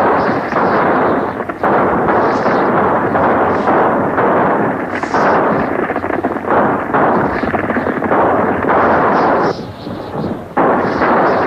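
Horseback chase on an old, muffled film soundtrack: galloping hooves mixed with repeated gunshots, a dense, continuous clatter that drops away for about a second near the end.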